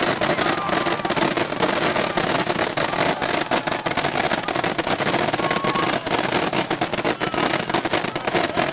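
Fireworks barrage: many shells and ground effects firing and bursting in rapid succession, blending into a continuous dense crackling rumble, with a few short whistles gliding in pitch.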